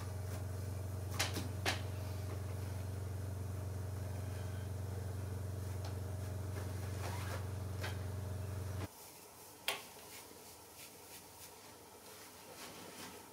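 A steady low hum runs until it cuts off abruptly about nine seconds in, with a few light clicks and taps from hand work on a burlap-covered chair seat. After the hum stops, only faint taps and rustles remain.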